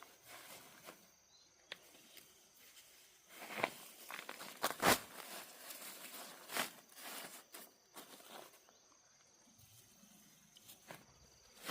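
Irregular rustling and crunching of dry plant material with footsteps, broken by a few sharp snaps, the loudest about five seconds in.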